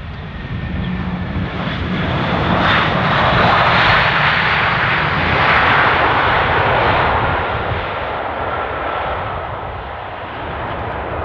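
Jet aircraft passing: engine noise swells to a peak about three to seven seconds in, then fades, with a high engine whine that slowly falls in pitch.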